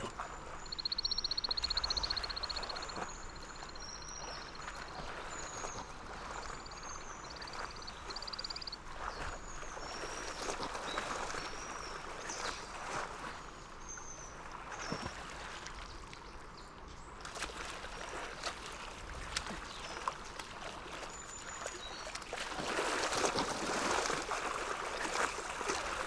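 Moose wading and splashing through shallow pond water, the splashing growing louder near the end as they run through it. Small birds chirp throughout the first two-thirds, with a fast trill early on.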